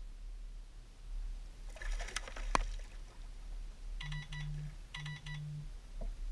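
Fishing reel buzzing in two short spells, about four and five seconds in, while a fish is played. Before them, around two seconds in, comes a clatter of clicks ending in a sharp knock. A steady low hum lies under everything.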